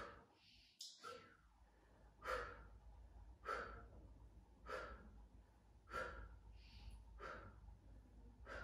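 A woman's breathing during a prone Pilates back extension: faint, short breaths out, one about every second and a quarter, each with one lift of the set.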